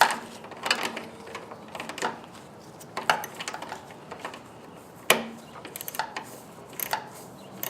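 Irregular metal clicks and knocks of a hand tool working on a small-engine carburetor as the float bowl nut is snugged up.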